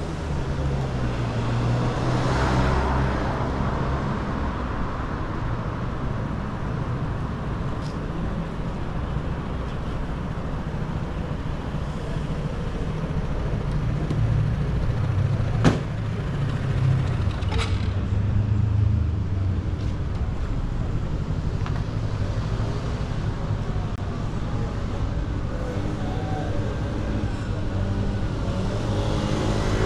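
Road traffic on a wide city boulevard: a steady rumble of car engines and tyres, with a vehicle passing close about two seconds in. A single sharp click comes a little past halfway.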